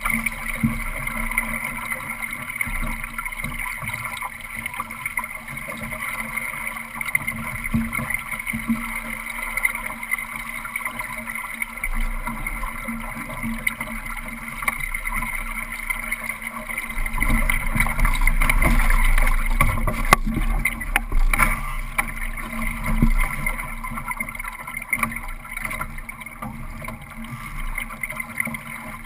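Water rushing and slapping along the hull of a Solo sailing dinghy under sail, heard from a camera mounted in the boat. The rush grows louder and heavier for a few seconds about two-thirds of the way through, with a few sharp ticks.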